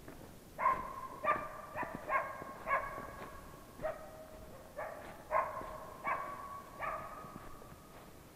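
Hunting laika barking at game it has found: about a dozen short, sharp, pitched barks at an uneven pace.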